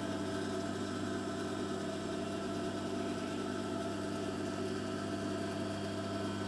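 The electric motor of a Singer 31K15 industrial sewing machine running on without stitching: a steady, even hum.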